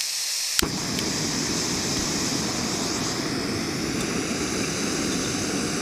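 Backpacking gas canister stove being lit: gas hissing from the opened valve, a sharp click from the lighter about half a second in, then the burner catching and burning with a steady rushing flame noise.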